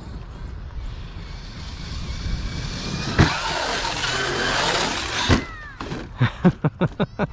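Large brushless RC monster truck on 8S accelerating hard, its motor and tyre noise building over about three seconds, then a jump. There are sharp hits a little past three seconds and again past five seconds, with loud running between them, and a quick run of short knocks near the end.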